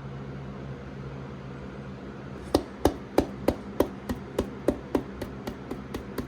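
Plastic motor-oil bottle held upside down and struck repeatedly to drain the last of the oil into the engine: about a dozen sharp knocks, roughly three a second, starting about two and a half seconds in.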